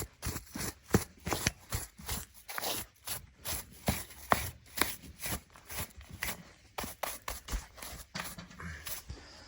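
Stones and soil being scraped and knocked out from around a tree stump's roots: irregular sharp clicks and scrapes, a few each second.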